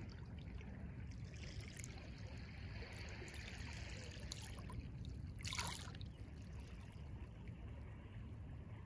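Small, calm sea wavelets lapping and trickling at the shoreline. One louder splash comes about five and a half seconds in, over a steady low rumble.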